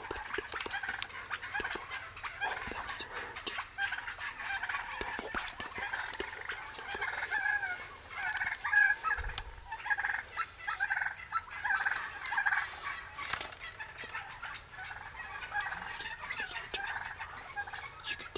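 Flock of wild turkeys calling close by: a steady chatter of many short, overlapping calls, louder for a moment about halfway through.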